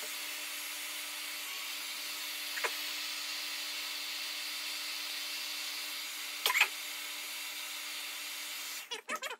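Handheld hair dryer running steadily, blowing hot air onto a rubber bike shifter hood to soften it: a hiss of airflow over a steady motor hum. Two short clicks, the louder one about six and a half seconds in, and the dryer cuts off shortly before the end.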